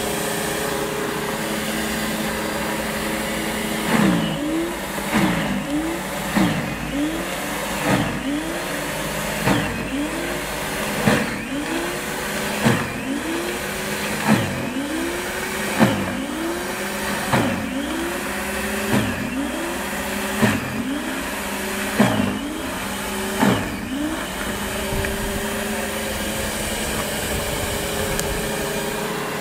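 Stiga corded electric snow thrower's motor running with a steady whine. From about four seconds in, its pitch sags sharply and recovers again and again, roughly every second and a half, as the auger bites into snow under load and throws it. The steady whine returns near the end.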